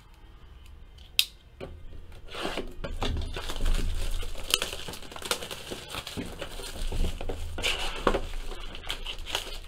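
Clear plastic shrink-wrap being torn and crinkled off a cardboard trading-card box, starting about two seconds in, after a single sharp click about a second in.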